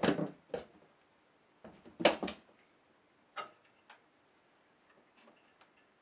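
Knocks and clunks of a Scheppach SD1600V scroll saw being set down and shifted on its cardboard box, the two loudest about two seconds apart, followed by faint clicks as its power cord is handled.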